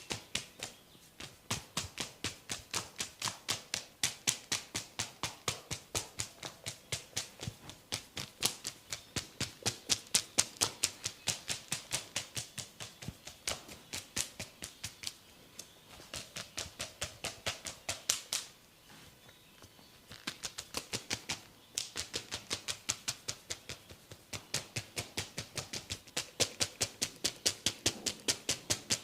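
Hands tapping rapidly and rhythmically on a person's head during an Indian head massage: sharp, even slaps at about three to four a second, with one brief pause about two-thirds of the way through.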